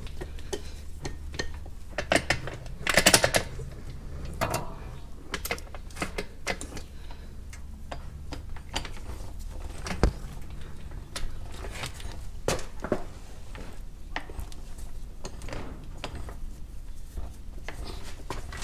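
Irregular metal clicks and clanks from a steel hood-hinge spring and hinge being worked on a milling-machine table as the spring is stretched into place. The loudest clanks come about 3 s and 10 s in, over a steady low hum.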